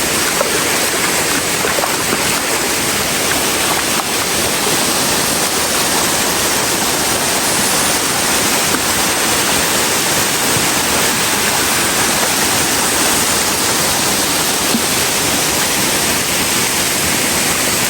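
Waterfall rushing: a loud, steady roar of falling water with no change.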